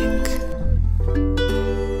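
Music between sung lines: plucked guitar notes start one after another and ring on together over a steady low bass tone.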